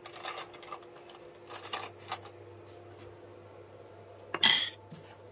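A fork and tableware clinking on a plate: a few light clinks, then one louder clatter about four and a half seconds in. A faint steady hum runs underneath.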